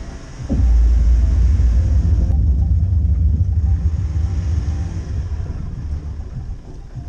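Low, steady rumble of a vehicle on the move, growing louder about half a second in.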